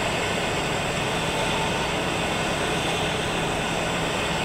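Steady city background noise: a continuous low rumble and hiss with no distinct events.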